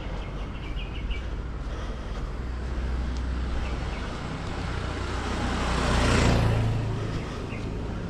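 A motor scooter riding past: its engine gets louder as it comes down the road, passes closest about six seconds in, and then fades away.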